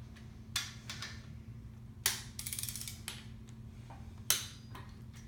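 Click-type torque wrench and socket on a small-block Chevy 350's connecting-rod cap bolts: several sharp metallic clicks about a second apart and a short rattle of ratchet clicks as the bolts are brought up a little at a time toward 45 ft-lb.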